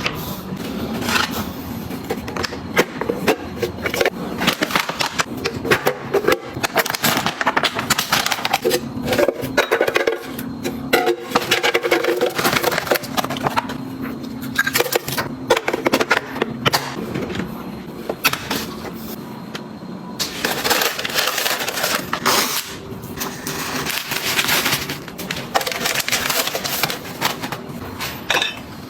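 Household items being handled, set down and arranged: a dense, irregular run of clicks, taps and rustles.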